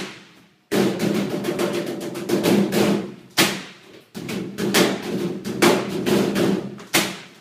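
Tumble dryer drummed on by hand while it runs: quick, rhythmic knocks and thuds on its metal casing over the machine's steady low hum. The sound drops out briefly twice.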